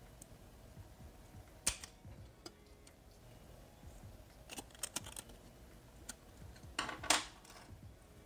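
Hard plastic clicks and snaps as a clip-on colour filter cover is pried off and fitted onto a small cube LED video light. It is a scattered series of sharp clicks, the loudest about seven seconds in.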